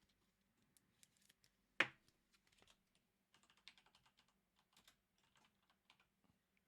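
Faint, irregular light clicks and taps, with one sharper click a little under two seconds in.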